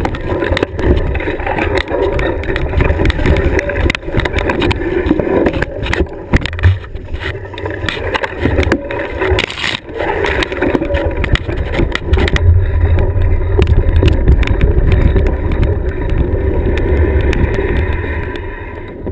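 Rattling and rumbling of a bumpy ride over a rough sandy trail, picked up by a camera mounted on the ride: steady wind and rolling rumble on the microphone with constant small knocks and rattles, dying down near the end as the ride slows to a stop.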